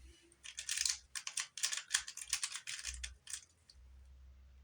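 Rubik's cube being turned through a T-perm swap. Its plastic layers give a rapid run of clicks and clatter for about three seconds, then stop.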